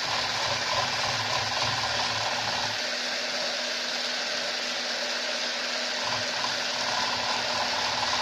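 Electric hand blender running steadily in a plastic tumbler of hot milk, its motor humming as it churns the milk to froth it into foam. The low churning drops away about three seconds in and comes back about three seconds later.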